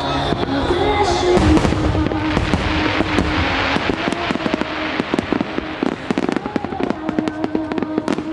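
Large display fireworks bursting in quick succession, with a dense crackling of glittering shells about two to four seconds in. A song plays over loudspeakers underneath.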